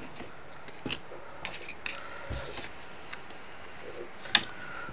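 Light handling noises of card pieces being slid and picked up on a wooden table, with small taps and one sharp click a little over four seconds in.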